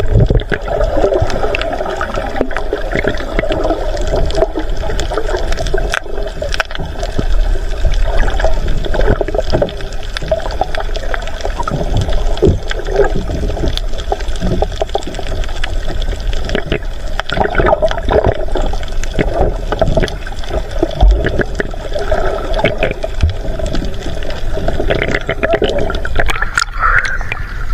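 Muffled underwater water noise picked up by a camera held below the surface: a continuous rushing and gurgling that surges unevenly as the diver swims. The sound changes about a second before the end as the camera nears the surface.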